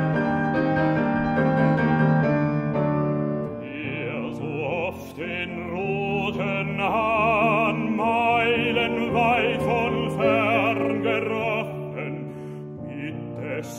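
Classical German art song: a grand piano plays chords alone for the first few seconds, then a baritone voice comes in about four seconds in, singing with strong vibrato over the piano accompaniment.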